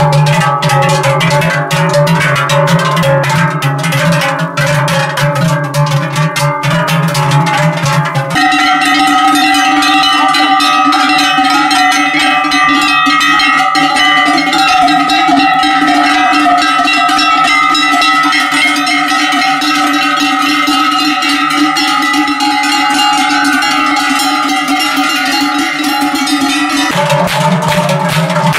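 Many large cowbells on a herd of cattle ringing together in a dense, continuous clanging. The mix of bell tones changes abruptly about eight seconds in and again near the end.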